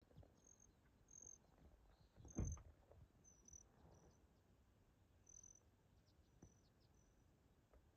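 Faint, high, short hummingbird chip notes at uneven intervals, with one dull low thump about two and a half seconds in.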